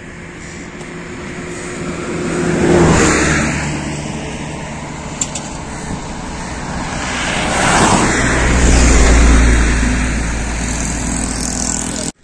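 Road traffic: two vehicles passing close by on a highway, one swelling up and fading about three seconds in, then a heavier one with a low rumble from about eight seconds that lingers until the sound cuts off suddenly.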